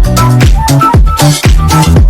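Background electronic dance music with a steady four-on-the-floor kick drum, a bass line and hi-hats.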